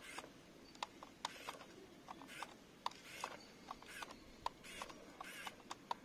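Faint, scattered small clicks at irregular intervals, mixed with a few short rustles.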